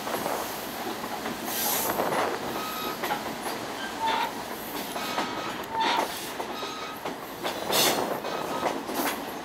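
Excursion train rolling along near track speed, heard from aboard: a steady rumble and rattle of the moving car with irregular knocks from the wheels on the rails and brief wheel squeals about four and six seconds in.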